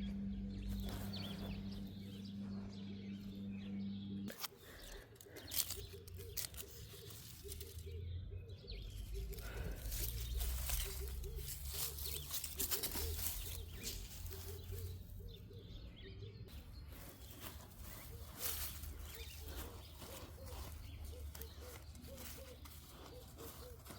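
Hands digging through garden soil: irregular scraping and rustling of earth as potatoes are felt for and pulled out.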